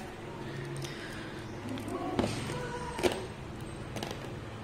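Handling noise from a plastic action figure: a few soft taps and clicks as it is gripped and turned in the hands, the clearest about two and three seconds in.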